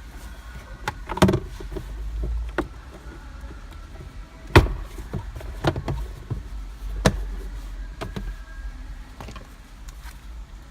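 Scattered sharp clicks and knocks over a low steady rumble, the loudest about four and a half seconds in.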